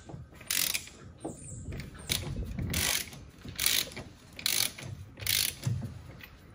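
Hand ratchet clicking in short repeated strokes, roughly one a second.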